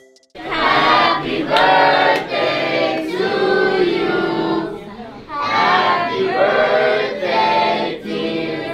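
A group of people singing a birthday song together, starting about half a second in, with a brief break near the middle.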